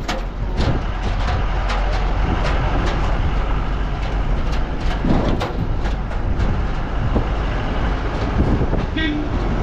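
A vehicle driving on a rough, bumpy road: a steady engine and road rumble with frequent knocks and rattles.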